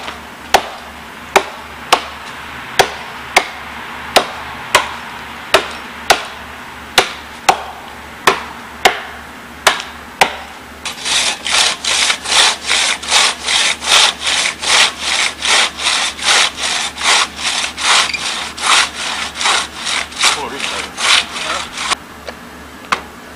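Two axes chopping a felling notch into a standing tree, with sharp blows landing about every two-thirds of a second. About ten seconds in, a two-man crosscut saw takes over, rasping back and forth through the trunk in quick, even strokes, and it stops shortly before the end.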